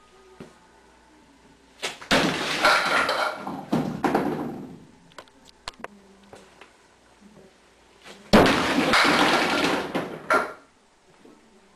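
Candlepins on a mini bowling lane struck by the ball and crashing into each other and the kickbacks, two loud bursts of clatter about six seconds apart, with scattered clicks of pins falling and settling in between.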